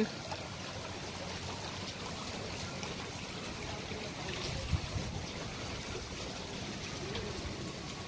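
Steady trickling and splashing of running water at a pool's water-slide play structure, with a brief thump nearly five seconds in.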